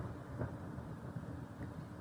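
Low, steady rumble of distant fireworks, with one faint bang about half a second in.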